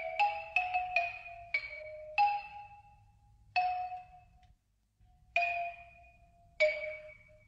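Tuned mallet-percussion notes in a cartoon score, each struck once and left ringing. Several come quickly at first, then they slow to one every second or so, like balls bouncing and settling.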